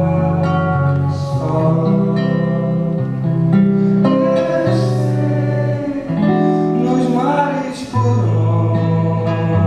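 Live song: a man singing over a strummed acoustic guitar, chords and sung notes held and changing every second or so.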